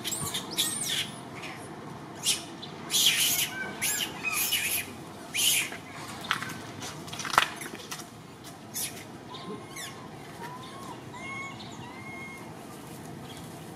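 A run of short, high-pitched chirping and squealing animal calls in the first half, then a few softer, short, clipped calls near the end.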